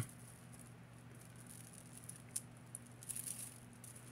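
Faint, scattered small clicks and light rattling of costume jewelry being handled, mostly about two and a half to three and a half seconds in, over a low steady hum.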